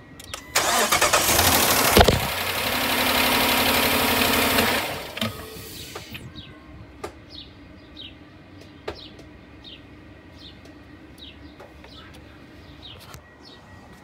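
Dodge Charger's 5.7 Hemi V8 being started: the starter cranks, the engine catches about two seconds in and runs loudly, then the sound drops away sharply about five seconds in. The engine has a failed cylinder 2 lifter and camshaft wear.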